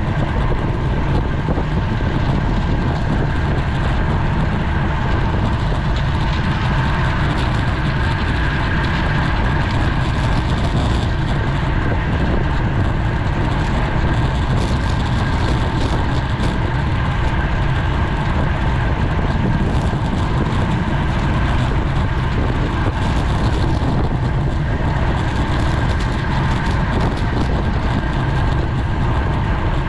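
Steady rush of wind and road noise picked up by a bicycle-mounted GoPro riding at race speed.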